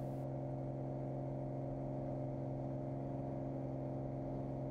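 Cirrus SR22's piston engine and propeller at full takeoff power during the takeoff roll: a steady drone that holds one pitch.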